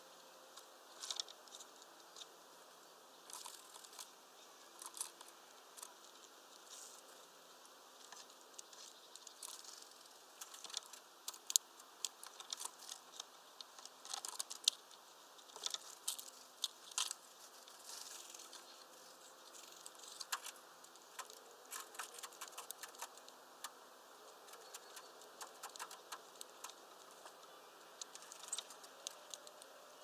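Irregular light clicks and taps, at times several a second, the sharpest about eleven seconds in: a grey-headed woodpecker's claws and bill working on the branch and the spiral suet-ball holder.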